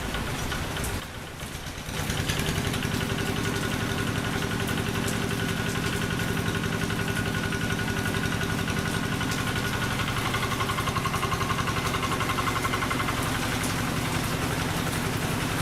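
Diesel engine of a Quick G3000 Zeva two-wheel hand tractor running steadily, with a brief dip about a second in before it comes back slightly louder.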